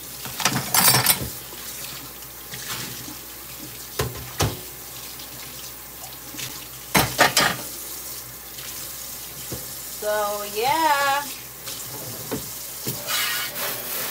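Tap running into a stainless steel kitchen sink while dishes are washed by hand, with knocks and clatters of dishes against the sink, loudest about a second in and again about seven seconds in. A brief wavering squeak-like tone about ten seconds in.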